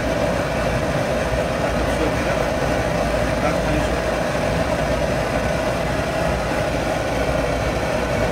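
Commercial gas wok range running: a steady, even roar.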